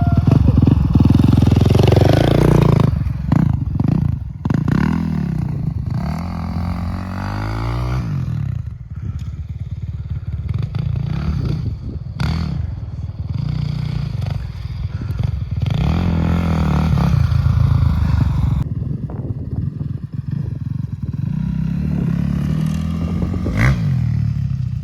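450cc dirt bike engine revving up and dropping back repeatedly as it is ridden, the swells coming every few seconds.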